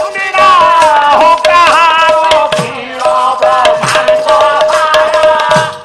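Odia pala devotional singing: voices singing a melody over a steady held note, accompanied by a barrel drum whose low strokes fall in pitch, with metallic rattling from small hand cymbals.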